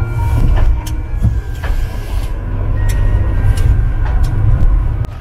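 Low, steady rumble of a car's engine and tyres heard from inside the cabin while driving slowly on a wet street, with a few sharp clicks and ticks scattered through it.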